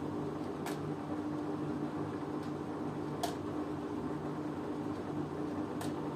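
LG WMN 6510 N front-loading washing machine running near the end of a 90° cotton programme: a steady machine hum with a low drone, and a sharp click about every two and a half seconds, three times.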